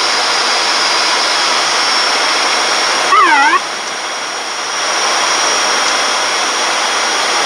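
Steady cockpit noise of an ATR 72-600 turboprop on final approach: engines, propellers and airflow, with a steady high whine. About three seconds in, a brief tone dips and rises in pitch for about half a second.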